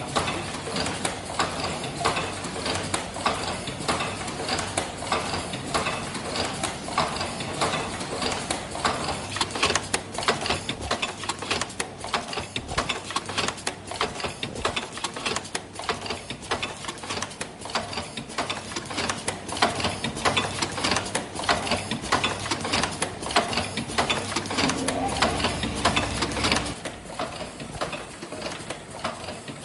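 Automatic disposable medical mask production line running, its mechanisms making a fast, continuous clatter of clicks and knocks. A low hum joins for a couple of seconds near the end.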